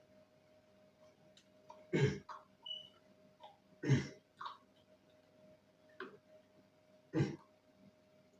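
Four short, sharp sounds, each well under half a second, spaced a second or two apart over a faint steady hum.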